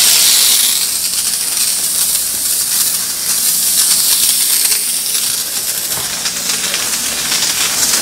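Handheld electric disinfectant mist sprayer spraying steadily: a continuous hiss of atomised sanitizer with a faint low motor hum underneath.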